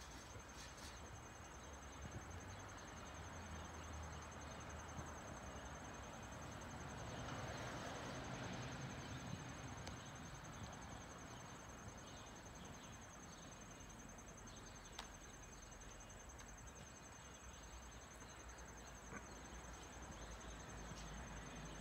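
Insects trilling steadily at a high pitch over a faint low rumble that swells a little about a third of the way through.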